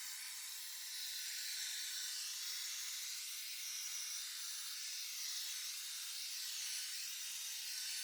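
Roborock S7 MaxV robot vacuum running at Max+ suction, a steady airy hiss from its suction fan.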